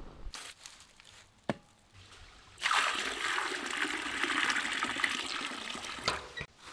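Water trickling for about three and a half seconds, starting a little over two seconds in and stopping suddenly, after a single light knock.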